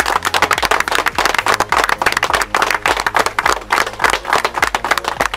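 A small crowd applauding, with many hands clapping steadily and densely.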